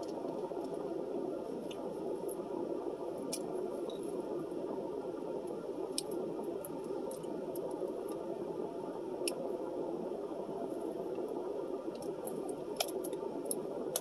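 Close-up eating sounds: chewing with small wet mouth clicks scattered throughout, over a steady low hum inside a car's cabin.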